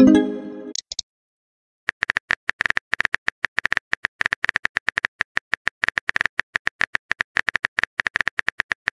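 A short pitched message sound as a text bubble appears, then after about a second's pause the rapid, even tapping clicks of a phone's on-screen keyboard as a reply is typed out, several keystrokes a second.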